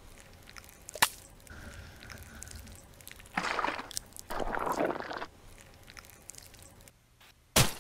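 Thick rust-remover gel squelching twice in a row as a chisel plunges into it and pulls back out. There is a short click about a second in and a louder sharp click near the end.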